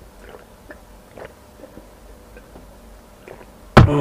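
Faint swallowing and mouth sounds while gulping water from a glass. Near the end comes a sudden loud vocal exclamation that falls in pitch, a reaction to chili heat.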